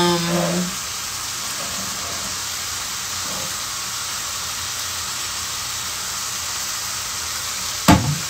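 Food sizzling in a frying pan, a steady hiss. A short hummed voice sound at the start, and a sharp knock near the end.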